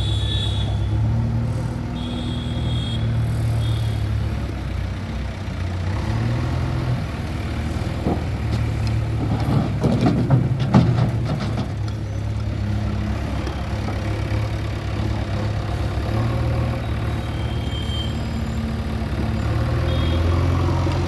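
JCB 3DX backhoe loader's diesel engine running steadily, with a burst of knocks and clatter about ten seconds in.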